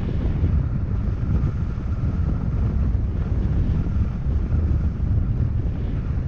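Steady low rumble of a vehicle driving on a dirt road, mixed with wind buffeting the microphone.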